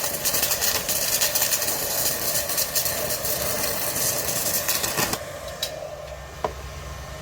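Welding arc crackling and sizzling steadily as a bead is laid on a steel tube, running hot enough to burn through the tube a little. It stops abruptly about five seconds in, leaving the low hum of the welder.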